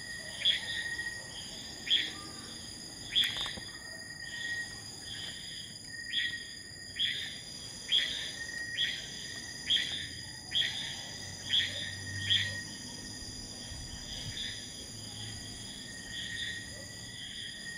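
Night-time insect chorus: several steady, high-pitched trills held without a break, with a fainter steady tone lower down. Over it, about a dozen short, sharp chirps come roughly once a second and stop about twelve seconds in; they are the loudest sound.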